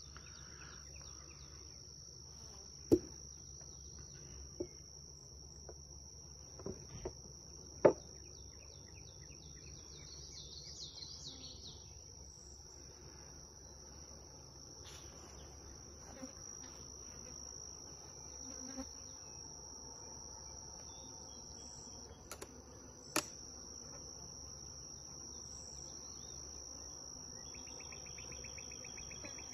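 Insects trilling in a steady high pitch, with honey bees buzzing around an open wooden hive. A few sharp knocks of wooden hive boxes and frames being handled stand out, the loudest about three and eight seconds in, with another near twenty-three seconds.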